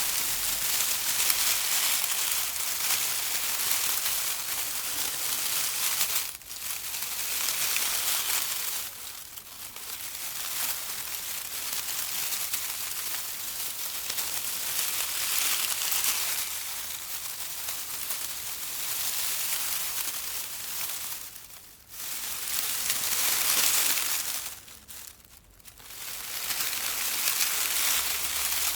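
Leaves and twigs of a bush rustling in a dense, crackly rustle that breaks off briefly a few times.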